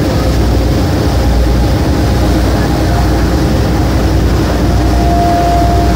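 Boat engine running steadily under way, with water and wind rushing past, heard from on board. A thin steady whine joins about five seconds in.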